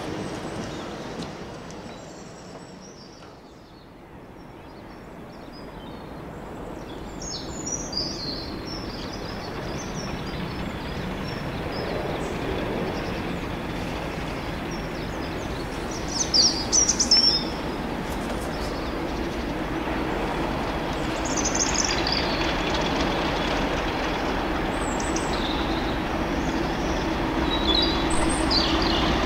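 Class 50 diesel locomotive with an English Electric 16-cylinder engine approaching, growing steadily louder with a steady low engine tone, with birds chirping over it.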